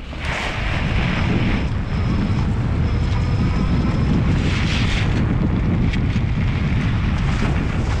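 Wind rumbling on the microphone as a fat-tyre electric bike picks up speed through snow, loud within the first second and staying steady, with spells of hiss from the tyres in the snow. A faint high whine from the Bafang geared hub motors comes through for a couple of seconds.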